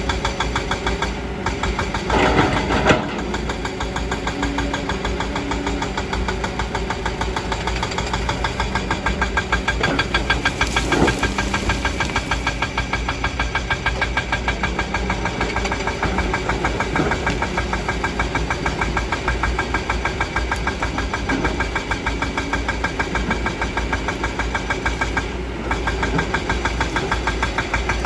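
Kobelco excavator's diesel engine running steadily while the machine digs, with a few louder knocks and scrapes of the bucket working the ground about two seconds in and again near the middle.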